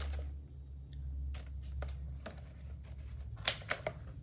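Scattered clicks and crackles of a smoke alarm's packaging being handled and worked at to get it open, with a sharper snap about three and a half seconds in.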